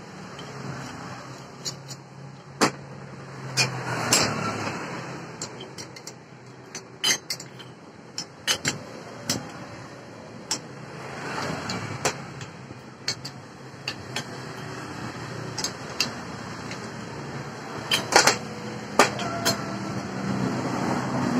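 Metal parts clinking and knocking as a toothed saw blade and its mounting bracket are fitted onto an angle grinder by hand: scattered sharp clicks and taps at uneven intervals, a few louder knocks several seconds in and again near the end, over a steady low hum.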